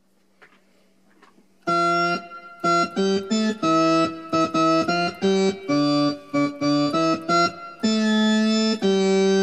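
Vox Jaguar transistor combo organ being played, after a quiet start with only a faint amplifier hum. Short chords begin about two seconds in, each cutting off sharply, and a longer chord is held near the end.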